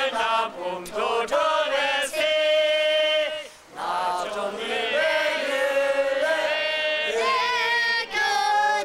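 A group of voices, men and a boy, singing a song together, with long held notes and a short pause for breath about three and a half seconds in.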